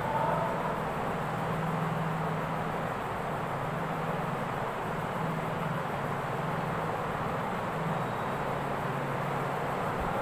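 Steady background noise: an even hiss with a constant low hum underneath.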